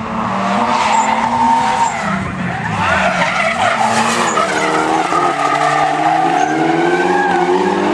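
Two drift cars sliding in tandem, one a Nissan S15, their engines revving up and down over the screech of the tyres.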